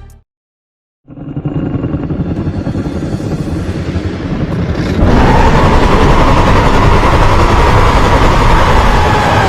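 Custom-made monster sound effect for the kaiju Destoroyah: a noisy, rumbling growl that starts about a second in and builds, turning louder and fuller about halfway through, with a held tone running through its later part.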